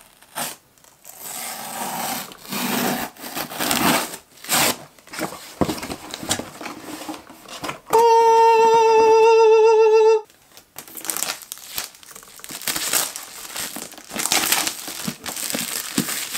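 A cardboard shipping box is torn open and handled: tape tearing, cardboard scraping and rustling, then a plastic bag crinkling. About eight seconds in, a loud held note with a slight waver cuts across it for about two seconds and stops suddenly.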